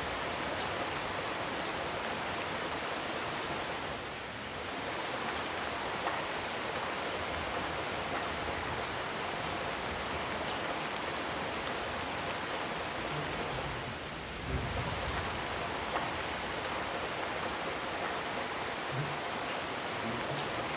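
Steady rain falling, an even dense hiss of drops on surfaces. The level dips briefly twice, and a few faint low knocks sound in the second half.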